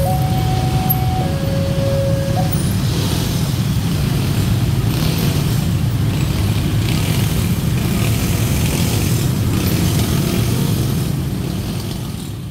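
Many motorcycle engines running together as a crowd of scooters and a car move over a railway level crossing. A two-tone electronic crossing alarm alternates a high and a low note, each held about a second, and stops about two and a half seconds in.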